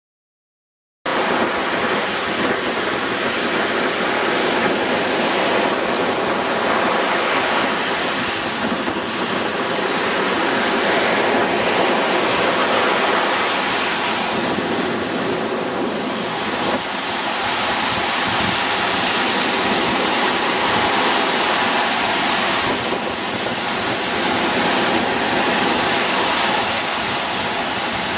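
Ocean surf breaking and washing up the beach, a loud steady rush of waves that cuts in abruptly about a second in.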